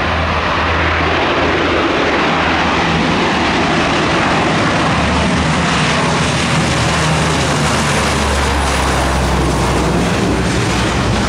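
Lockheed C-130 Hercules' four turboprop engines at takeoff power as the aircraft lifts off and climbs out: a loud, steady engine noise with a low propeller hum beneath it.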